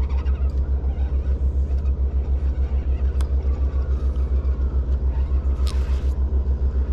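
An engine idling with a low, steady throb that pulses about seven times a second. A sharp click comes about three seconds in, and a short hiss near the end.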